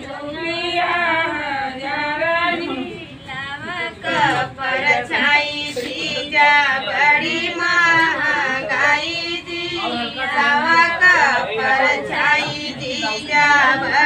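High-pitched voices singing without instruments, in a melody that rises and falls.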